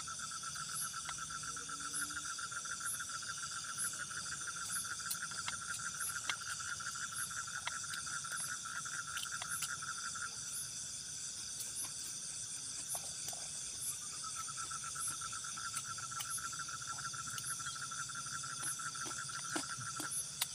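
Night chorus of insects and frogs. One loud, rapid, steady trill stops about halfway through and starts again a few seconds later, over an even high-pitched insect buzz.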